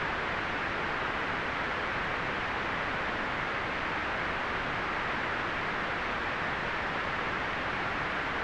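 Continuous white noise: a steady, unchanging hiss, fullest in the upper-middle range and softer in the highs and lows.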